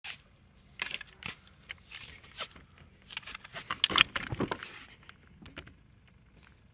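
Scattered clicks, rustles and scrapes, thickest about four seconds in, then dying away.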